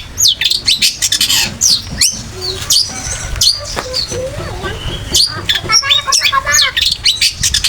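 Long-tailed shrike (cendet) singing a fast, varied song of sharp chirps and quick rising and falling whistled notes, with a rapid stuttering trill about six seconds in. The species weaves other birds' calls it has copied into its song.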